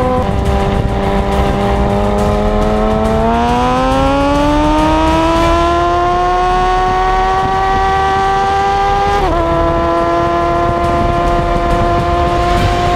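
Sport motorcycle engine under way at highway speed: the engine note drops with an upshift at the start, climbs steadily for a few seconds as the bike accelerates, then drops again with another upshift about nine seconds in. Wind rumbles on the bike-mounted microphone underneath.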